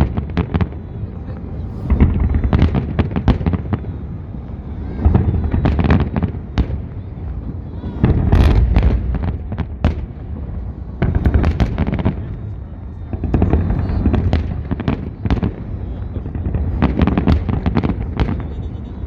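Fireworks salute: bursts of sharp bangs and crackling shell explosions in clusters every two to three seconds, over a heavy low rumble.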